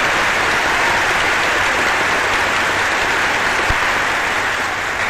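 A large crowd of legislators applauding steadily in a packed chamber, heard in a 1941 broadcast recording with a faint steady low hum underneath.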